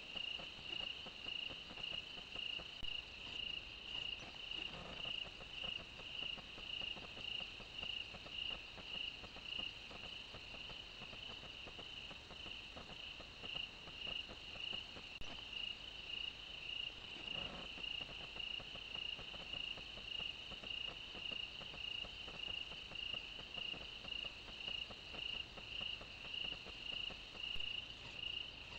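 Night-calling crickets chirping in a steady, even rhythm of about two high chirps a second.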